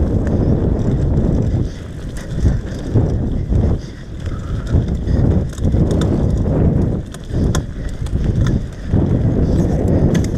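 Mountain bike riding fast down a dirt forest trail: a steady rough rumble of the tyres on the ground, with many quick rattles and clicks from the bike's chain and frame over the bumps, easing off briefly twice.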